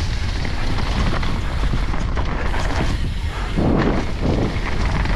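A mountain bike riding fast down a dirt downhill trail: wind rushing over the microphone with a steady low rumble from the tyres, and short rattles from the bike. A louder rush comes about three and a half seconds in.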